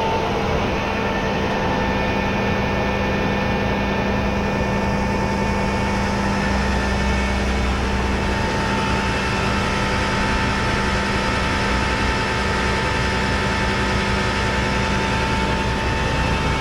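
Rollback tow truck running with its hydraulics and winch working to ease a car down the bed: a steady engine hum with steady whining tones over it.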